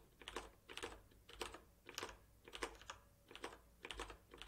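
Faint typing on a computer keyboard: short key clicks, often in quick pairs, coming about every half second.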